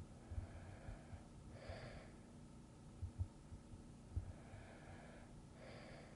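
A person breathing slowly and softly in sleep: two breath cycles about four seconds apart, each a faint drawn-out breath followed by a shorter, stronger one. Irregular faint low thuds sit underneath.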